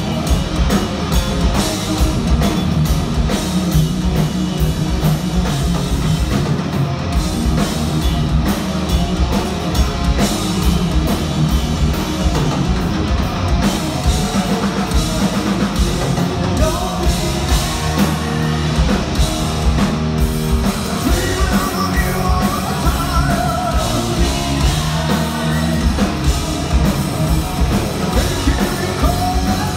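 Heavy metal band playing live: distorted electric guitars, bass and a pounding drum kit at a steady beat, with vocals.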